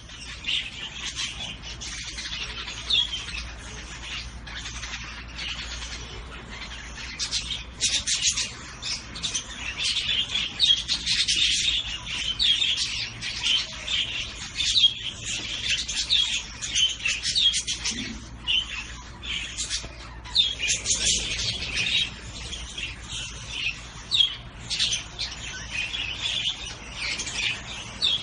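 Zebra finches chirping and calling continuously: many short, high chirps overlapping one another.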